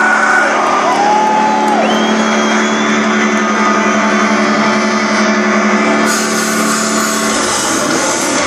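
Live heavy-metal band playing loud through a festival PA, heard from within the crowd. It starts as a held, droning note with a couple of sliding high notes over it. Cymbals come in about six seconds in, and the full band with drums and bass joins about a second later.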